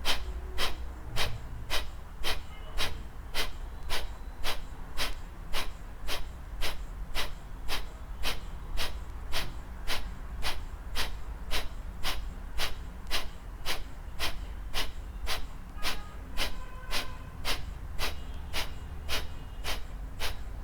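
Kapalbhati breathing: a steady train of short, forceful exhalations pushed out through the nose, about two a second, each a brief puff like clearing the nose.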